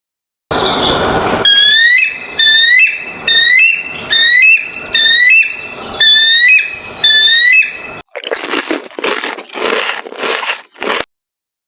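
Animal sound effects: a brief rough noise, then about eight high squealing calls in a row, each rising in pitch, followed by four or five rough noisy bursts that stop shortly before the end.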